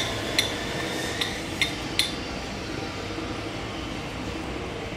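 Lab sigma-blade mixer (kneader) running with white powder in its steel trough: a steady machine noise, with five sharp metallic clinks in the first two seconds that then stop.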